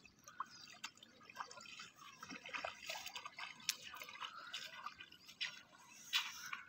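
Faint water dripping and trickling: irregular small drops and splashes.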